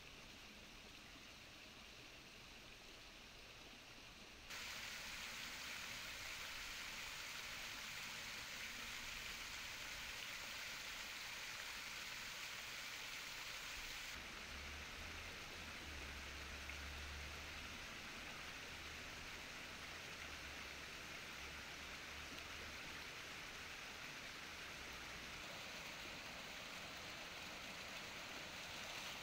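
Faint outdoor ambience for the first few seconds, then, from about four seconds in, the steady splashing and trickling of water spilling over a stacked-rock fountain into its shallow pool.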